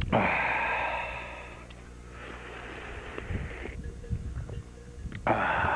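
Noisy slurping sips of milk with snow from an enamel mug held at the lips. There are two long sips in the first half and another, louder one starting near the end, over a faint steady low hum.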